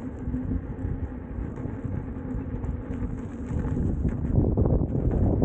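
Wind buffeting the microphone and tyre rumble from an Inmotion V12 electric unicycle riding along a trail, with a faint steady hum; the noise grows louder about four seconds in.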